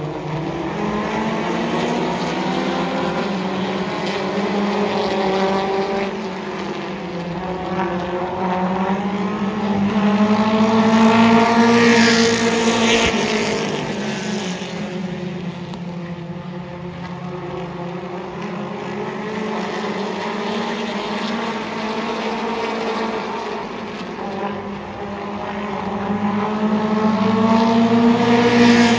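Mini stock race cars racing around a paved oval, their engines rising and falling in pitch as they rev through the laps. The engines are loudest about twelve seconds in and again near the end.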